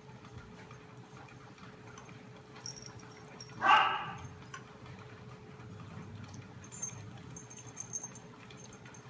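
Two Formosan mountain dog puppies eating from a metal bowl: small repeated clicks of chewing and licking, with one short, much louder sound a little over a third of the way in.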